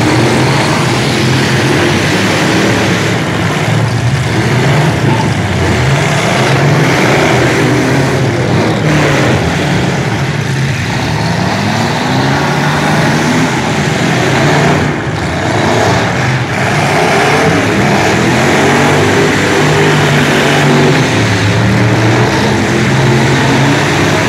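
Several demolition-derby pickup trucks' engines revving hard at once, rising and falling in pitch, with occasional thuds of trucks ramming each other.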